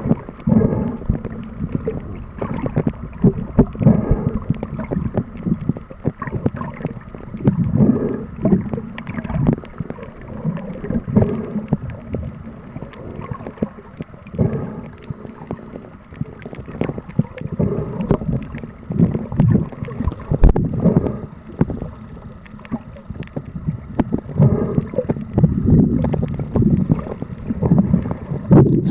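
Muffled water noise recorded underwater: sloshing and gurgling, with irregular knocks, that swells every few seconds.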